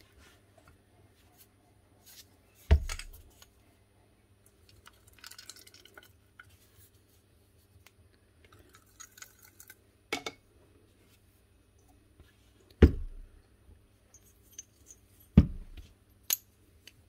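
Metal tool parts being handled and set down on a workbench: four sharp clinks and knocks a few seconds apart, with light rustling and handling noise between them.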